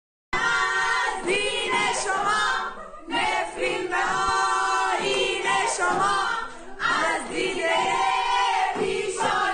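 A group of schoolgirls singing a protest song together, with short breaths between phrases.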